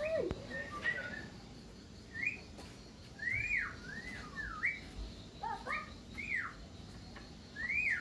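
Caged Javan myna (jalak kerbau) singing a run of short whistled notes, each sweeping up and down in pitch, with a lower arched note at the start.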